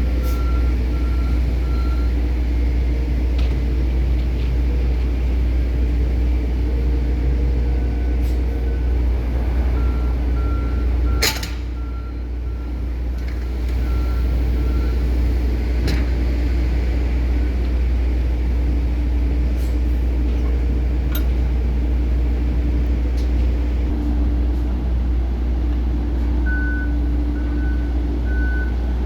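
Heavy diesel machinery running steadily with a deep rumble while wheat is unloaded from the ship into trucks, and a truck's reversing beeper sounding in stretches near the start, around ten seconds in, and again near the end. A single sharp burst sounds about eleven seconds in.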